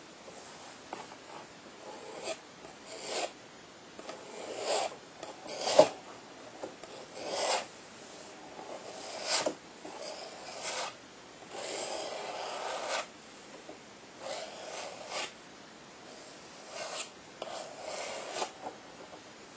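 Palette knife scraping and spreading paint across a canvas in a series of short, irregular rasping strokes, with one sharp tap about six seconds in.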